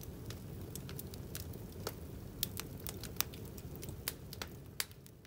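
Wood fire burning in an open fireplace: irregular sharp pops and crackles over the low steady rush of the flames, fading out at the end.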